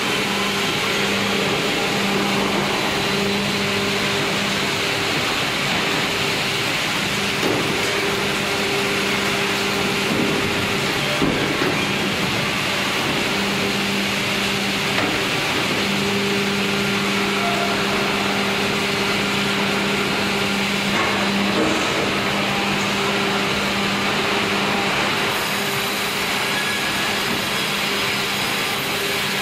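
Band sawmill and its hydraulic log carriage running: a steady, loud machinery din with a constant low hum underneath.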